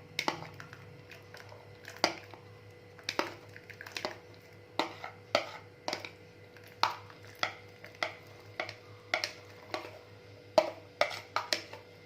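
Sharp, irregular clinks of a kitchen utensil against a pot and bowl as sweet corn kernels are added slowly to water heating on the stove, about one or two clinks a second.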